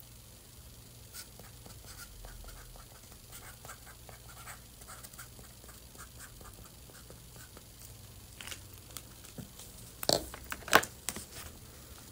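Felt-tip marker squeaking and scratching in many short, quiet strokes as it writes on a bento box lid. Near the end come a few louder knocks and rustles as the lid is handled.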